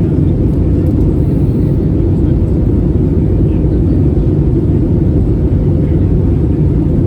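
Steady cabin noise of an Airbus A320neo with Pratt & Whitney geared turbofan engines: a loud, even low rumble of engines and airflow heard from inside the cabin.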